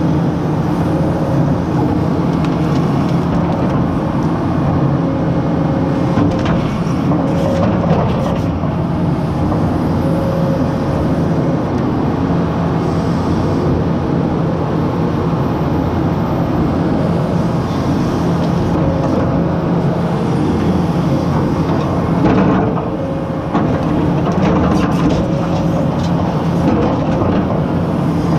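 Caterpillar 320E LRR excavator's diesel engine running steadily under working load as the boom and bucket are moved, heard from the operator's cab, with a few knocks.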